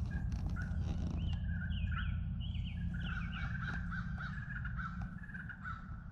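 A bird calling in the woods: a quick series of short, falling notes, about two a second, beginning about a second in, over a steady low rumble.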